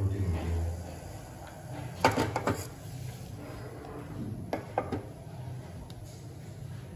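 Household clatter: a cluster of sharp knocks about two seconds in and another around four and a half seconds, over a low steady background.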